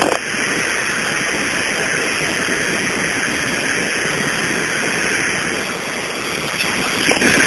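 Steady engine and wind noise inside a small airplane's cabin, heard over a phone line.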